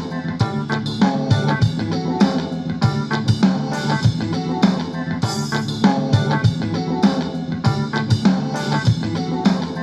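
Music with a steady drum-kit beat and pitched instruments, played through a JBL Go 2+ portable Bluetooth speaker for a sound test.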